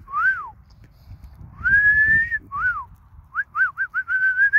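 A person whistling to a strutting tom turkey to get him to gobble: a couple of short up-and-down notes, a long rising note about two seconds in, then a quick run of short notes near the end.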